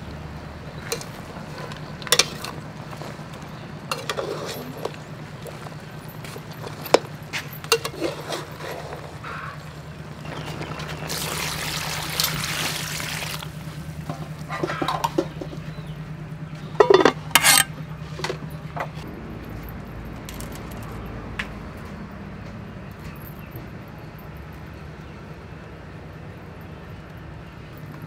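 Metal spatula knocking and scraping against a metal pot while a simmering stew is stirred, with liquid sounds and a hiss of about two seconds partway through. The knocks stop about two-thirds of the way in, leaving a steady low hum.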